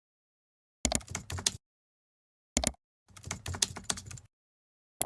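Four short bursts of rapid sharp clicks, separated by dead silence.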